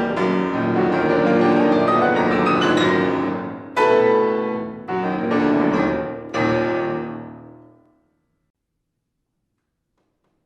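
Solo piano playing a dense passage that closes on three loud chords about a second apart, the last one ringing away into silence near the end.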